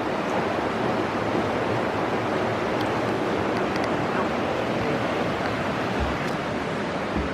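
Shallow creek flowing, a steady rushing wash of water, with two faint low thumps near the end.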